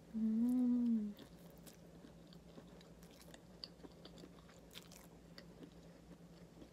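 A woman eating a mouthful of pancit noodles gives a closed-mouth "mmm" of enjoyment lasting about a second. She then chews quietly, with small clicks from the mouth and fork.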